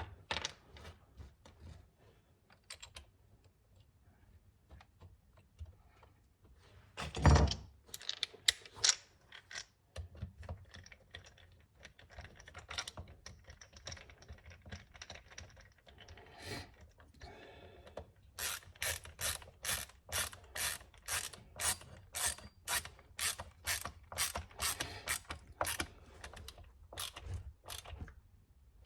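A hand ratchet driving a T25 Torx bit clicks as the mounting bolts of a chainsaw's inside felling dog are run in, settling into a steady run of about two clicking strokes a second in the last ten seconds. Before that come scattered clicks of tools and parts being handled and one loud knock about seven seconds in.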